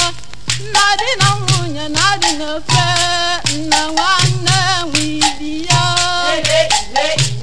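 Women singing an Igbo traditional song together, with rattles or shakers and other percussion keeping a quick beat over a repeating low pulse.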